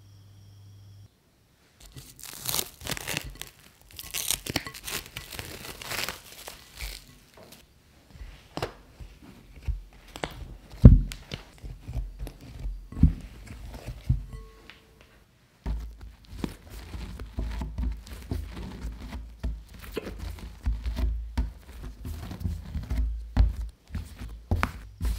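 Bread dough worked by hand: soft, sticky dough squeezed and torn apart in a glass bowl, with crackling, squelching tears and one sharp knock partway through. After a short pause, the dough is kneaded on a wooden board, with repeated low thuds.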